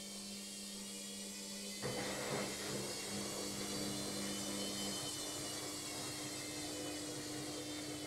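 Logik front-loading washing machine in an interim spin: the motor and drum run with a steady hum and a high whine, and about two seconds in a louder rushing noise comes in and holds.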